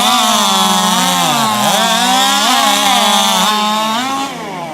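Racing chainsaw cutting through a log at full throttle. Its high engine pitch sags and recovers several times as the chain loads up in the wood. About four seconds in, the throttle is let off and the engine pitch falls away as the cut ends.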